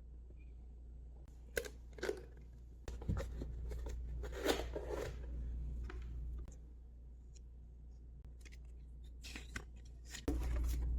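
Packaging being handled during an unboxing: scattered sharp clicks and short bouts of rustling and tearing, over a low steady hum that gets louder about three seconds in and again near the end.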